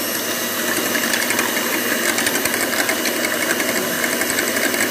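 Electric hand mixer running steadily, its twin steel beaters whisking three raw eggs in a glass bowl.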